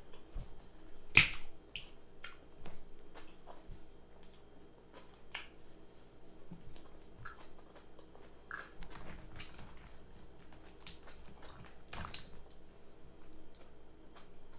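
Eating crab legs: scattered wet mouth clicks and smacks, with a few sharp snaps, the loudest about a second in and another near the end.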